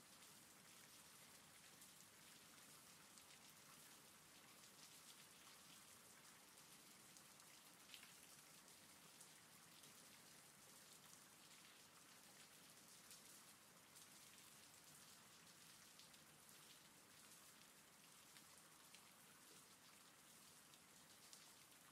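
Faint, steady rain, with the ticks of single drops scattered through it.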